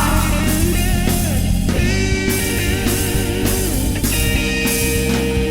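Cumbia-rock instrumental with distorted electric guitar, drum kit and bass, with sliding and held guitar notes over a steady beat.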